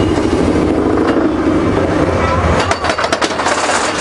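Expedition Everest roller coaster train rolling along its track with a steady rumble, then a quick run of rattling clacks from the wheels about three seconds in.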